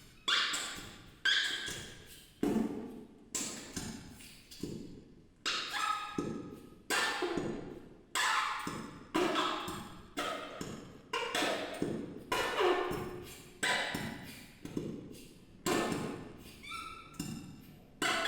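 Fart sound effects from a fart-noise gadget, played one after another at about one a second, each starting suddenly and dying away in a loud echo.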